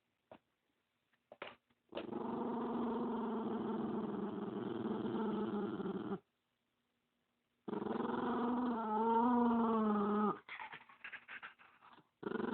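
Dog growling in two long, drawn-out growls of about four and three seconds, the second wavering in pitch near its end, followed by a few short, broken noises.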